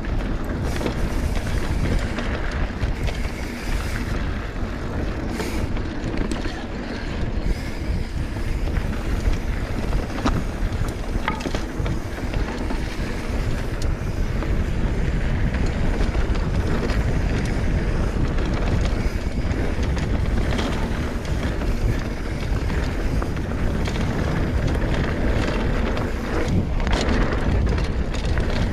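Wind buffeting the microphone over the steady rumble of a mountain bike rolling fast down a dirt singletrack, with frequent small clicks and rattles from the bike.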